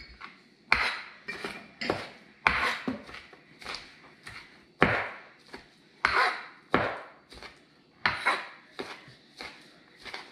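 Cleaver chopping raw mangrove snapper with onion and green onion on a cutting board, mincing it for burger patties: a string of irregular knocks, about two a second.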